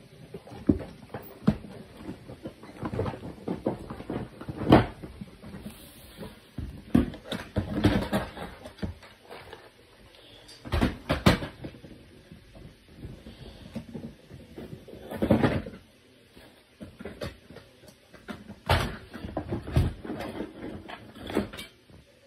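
Irregular clicks, knocks and clatter of hard objects being handled and set down, in clusters with short quieter gaps.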